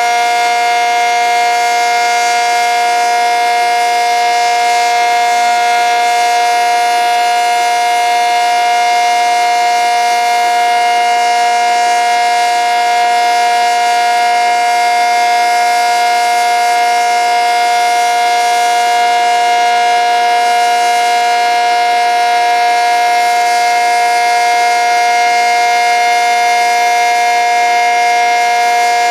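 ACA Cyclone 125 omnidirectional tornado siren sounding its steady alert signal: a loud, constant tone that holds its pitch without rising or falling.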